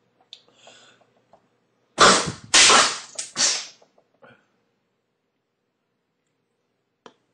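A person forcefully blowing air out through the nose three times in quick succession, hard rushing blasts meant to force coins out of the nostrils, after a few short sniffs. A single sharp click comes near the end.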